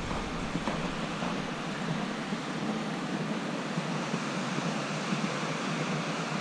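Steady rushing of a creek and waterfall: an even, unbroken roar of flowing water.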